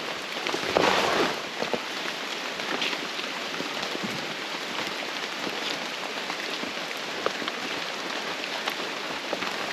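Steady rain falling on rainforest foliage, many small drop ticks in an even hiss, with a short louder swish about a second in.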